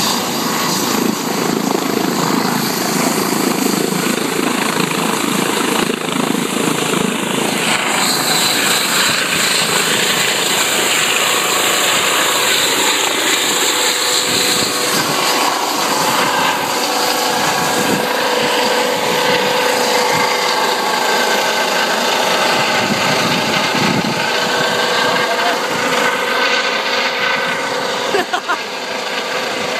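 A Eurocopter EC135 twin-turbine helicopter runs loud and steady, with turbine whine and rotor noise, as it lifts off and climbs away.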